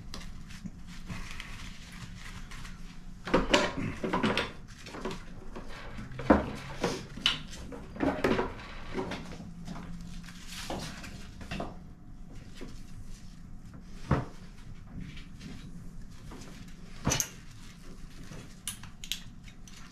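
Scattered knocks, clinks and rustling of tools and gear being handled, with a burst of clatter about three seconds in and sporadic sharp clicks and knocks after that.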